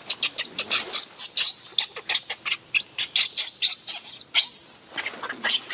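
Rapid run of short, high-pitched monkey squeaks and chirps, several a second, over a steady high thin whine.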